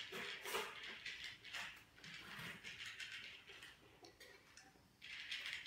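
Faint knocks, scrapes and clicks of a plastic food bowl being nosed and pushed about on a tile floor by two cats, which tip it onto its side.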